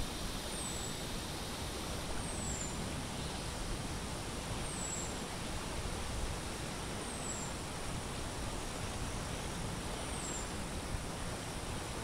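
Steady outdoor background noise with a low rumble, over which a faint, high, thin call sliding downward repeats five times, every two to three seconds.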